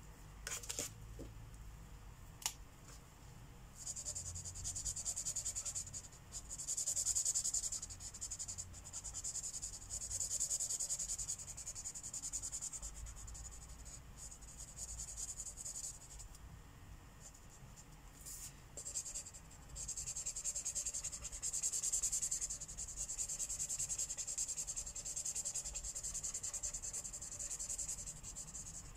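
Marker tip rubbing on paper while coloring in, in long stretches of quick back-and-forth strokes, with a couple of sharp clicks in the first few seconds.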